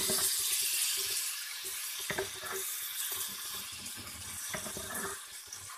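Sliced onions sizzling in freshly added hot oil in a pot: a steady frying hiss that slowly dies down, with a couple of faint clicks.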